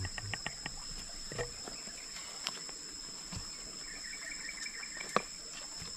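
Steady high-pitched insect drone with scattered sharp clicks and knocks. There is a brief chirping trill around four seconds in and one loud click about five seconds in.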